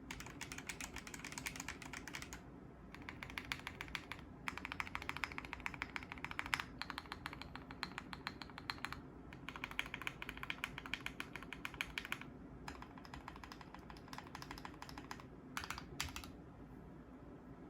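Custom mechanical keyboard (Brutal60 case, lubed Gateron CJ linear switches, FR4 plate, GMK keycaps, tape-modded and filled with poly-fil) being typed on quickly in bursts of a few seconds with short pauses, giving dense muted clacks.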